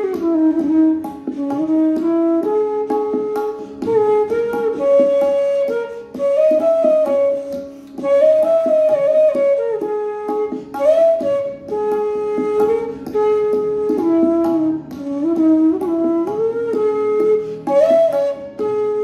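Bansuri, a bamboo transverse flute, playing a melody in raag Kaushik Dhwani (Bhinna Shadaj). It holds notes and slides between them in smooth bends, over a steady low drone.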